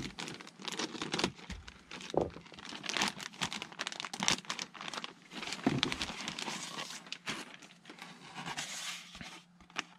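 Clear plastic bag crinkling and rustling in irregular handfuls as it is slit open with a hobby knife and a foam wing panel is pulled out of it.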